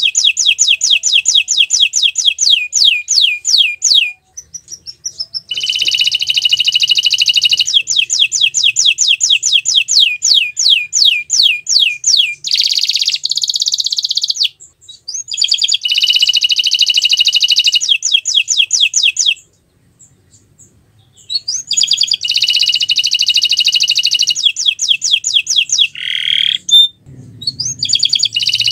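Domestic canary singing long, loud phrases of fast rolling trills, each phrase breaking off into a short pause before the next begins.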